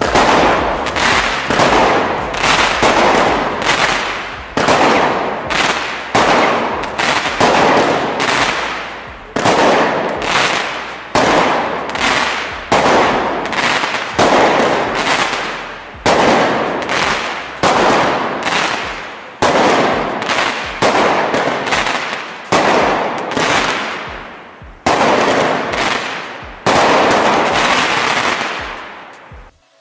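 A WECO 'Tristan' 20 mm multi-effect firework battery firing its shots one after another, about once a second. Each is a sharp bang followed by a fading hiss.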